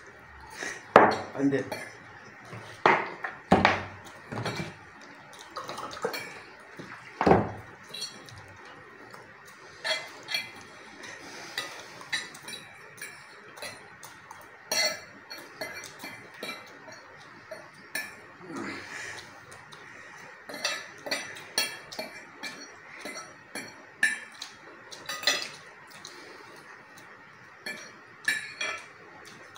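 Utensils clinking and scraping against plates and bowls while noodles are eaten quickly. The clinks are short and irregular, with a few louder knocks in the first several seconds.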